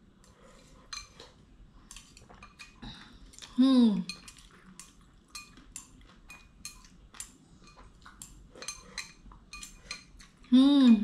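Eating utensils clicking and clinking against a noodle bowl many times over. Twice a short hummed 'mm' of a voice breaks in, about four seconds in and again at the very end.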